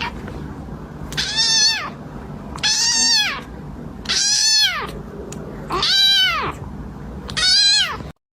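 A cat meowing loudly five times, about one long, high call every second and a half, each rising then falling in pitch.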